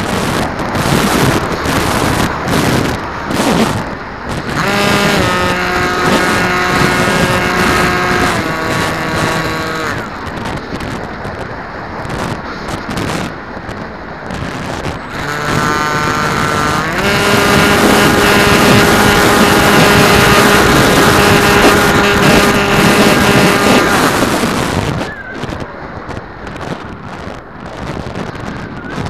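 Motor and propeller of a radio-controlled aircraft whining at a steady pitch under power, with wind rushing over the onboard microphone. The whine comes in about five seconds in and drops away near ten seconds. It returns about fifteen seconds in, rises, and holds loudest until it cuts off near twenty-five seconds, leaving only the wind.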